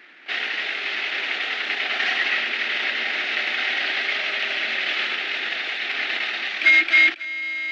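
A steady hiss of background noise, then a vintage car horn sounds two short toots and one longer blast near the end.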